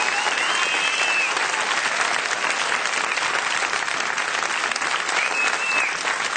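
Audience applauding steadily at the end of a live song, with a thin high tone rising and falling briefly over the clapping near the start and again near the end.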